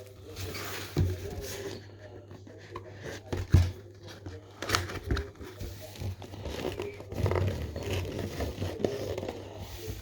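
Plastic wrapping crinkling and tearing and a cardboard box of trading cards being handled, with scattered knocks, the loudest about three and a half seconds in.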